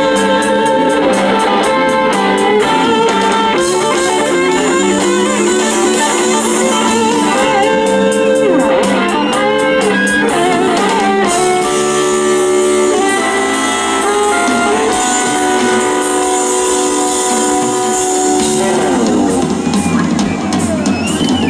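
Live rock band playing an instrumental passage: electric guitar lead lines with held and bent notes over drums and bass.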